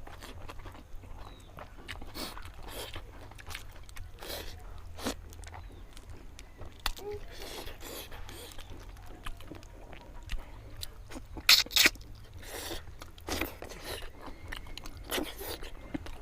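Close-miked eating of fish curry: irregular wet chewing and mouth clicks, with a pair of louder clicks about two-thirds of the way in, over a steady low hum.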